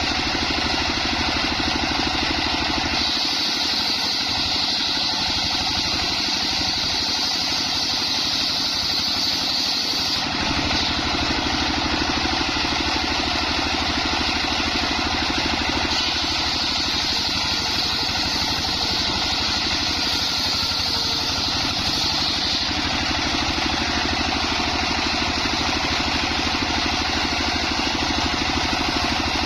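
Homemade engine-driven circular saw running steadily while sawing a coconut trunk. Twice, for several seconds each, a higher whine joins the engine note: about three seconds in, and again around the middle.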